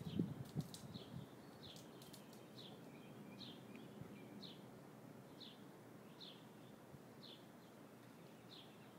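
A songbird repeating a single short, high, falling chirp about once a second over faint outdoor background. Soft rustling and a few light clicks from close handling in the first second or two.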